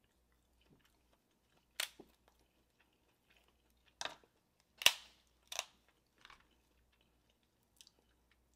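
Cooked crab leg shell cracked and snapped apart by hand: about six sharp, separate cracks spread out, the loudest about five seconds in.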